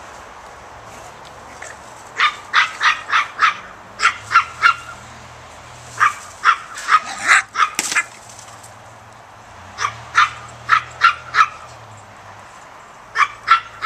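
Dog barking in volleys of three to six quick, sharp barks, with pauses of one to two seconds between volleys. The barking starts about two seconds in.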